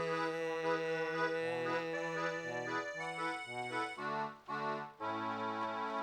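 Concertina playing an instrumental passage: sustained chords over bass notes that step from one to the next. There are two short breaks a little past four seconds in, then a long held chord.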